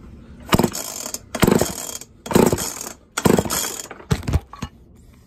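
Recoil starter of a ported Homelite Super XL-130 chainsaw pulled five times, about once a second, turning the engine over for a compression test. The gauge reads just shy of 200, higher than expected.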